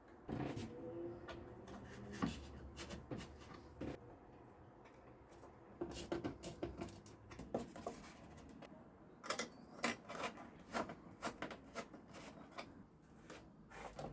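Irregular clicks, taps and light knocks of objects being handled during hand work, with denser clusters of sharp clicks in the middle and latter part.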